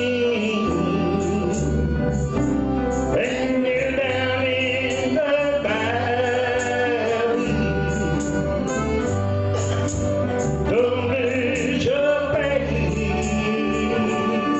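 A man singing a slow gospel song into a handheld microphone, holding long notes with vibrato over an instrumental accompaniment with a steady bass line.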